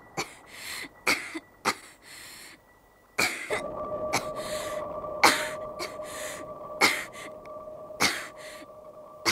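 A person coughing hard and repeatedly in short, irregular fits, as with a cold. A faint steady tone comes in underneath from about three and a half seconds in.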